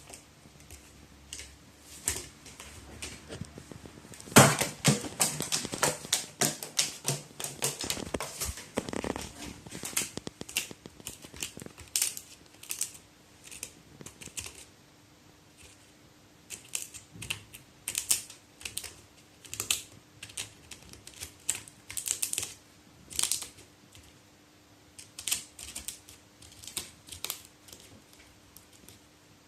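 A crow's beak pecking and tapping, making a long irregular run of sharp clicks and taps. The run is densest and loudest from about four to nine seconds in.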